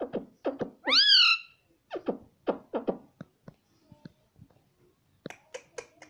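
Indian ringneck parakeet making a run of short clicking and chattering sounds. A single loud, rising-then-falling squawk comes about a second in, and a quick burst of high chirps near the end.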